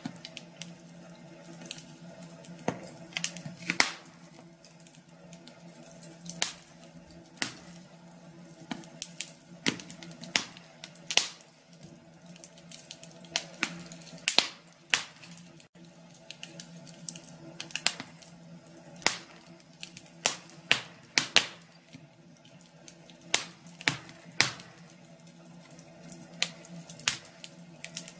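Wood fire crackling in a fireplace: irregular sharp pops and snaps, some in quick clusters, over a steady low background.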